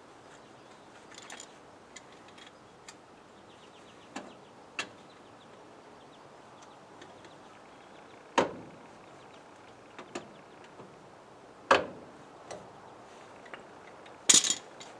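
Hand tools knocking and clinking on car parts during work on a front wheel and suspension: a few scattered light taps, two sharper knocks about eight and twelve seconds in, and the loudest quick cluster of clanks near the end.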